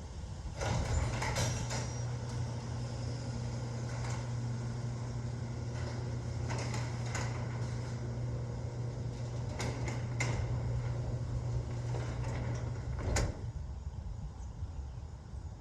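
Overhead Door Odyssey Legacy chain-drive garage door opener running a garage door through its travel: a steady motor hum with rattles and clicks from the chain and door. It starts about half a second in and stops with a clunk about 13 seconds in.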